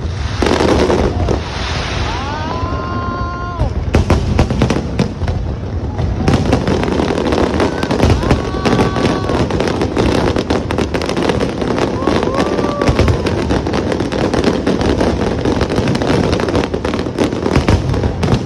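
Large fireworks display: many shells bursting in quick succession, bangs and crackling packed densely over a steady low rumble.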